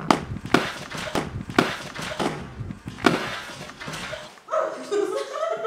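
Running footsteps on dry grass, sharp crunching steps about two a second, with a short burst of voice near the end.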